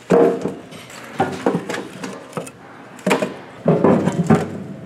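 Irregular knocks and clatter of kitchen work, about a dozen strikes, some with a short ring after them.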